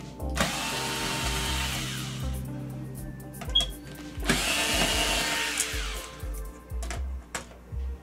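A cordless power screwdriver runs twice, each time for about two seconds, backing out the Phillips screws around the TV's rear bezel. A few sharp clicks follow near the end.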